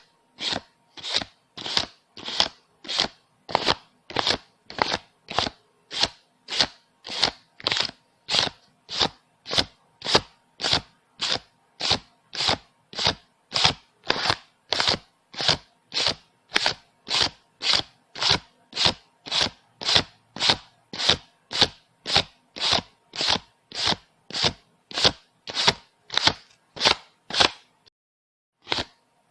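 Paper banknotes being counted one by one, a short papery swish for each note at a steady pace of a little under two a second, with a brief pause near the end.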